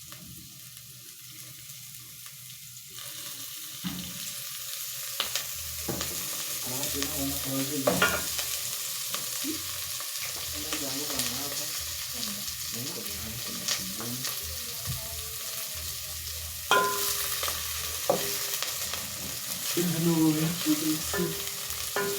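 Red onions sizzling as they fry in oil in a pot, stirred with a spoon that knocks against the pot now and then. The sizzle grows louder about three seconds in.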